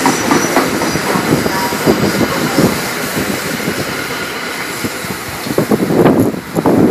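NJ Transit commuter train cars passing a station platform, their wheels clattering on the rails, with a louder run of clatter about six seconds in.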